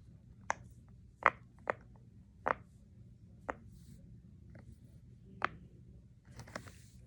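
Silicone pop-it fidget toy (butterfly-shaped) being pressed bubble by bubble: about seven short, crisp pops at irregular intervals.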